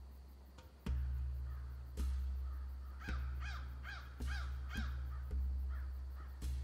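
A crow cawing, five harsh caws in quick succession about halfway through and fainter ones near the end, over a low thud about once a second.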